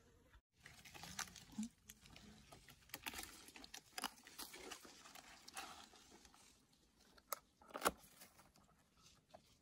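Faint rustling and crackling of dry leaves, grass and twigs as hands pick small wild mushrooms off a rotting log, with one sharper click about eight seconds in.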